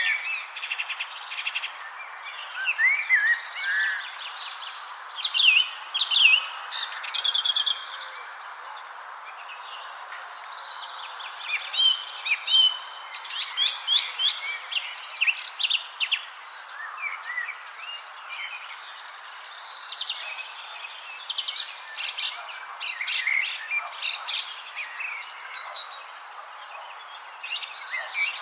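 Several birds chirping and singing in quick, overlapping calls, over a continuous high-pitched tone and a soft steady hiss of outdoor ambience.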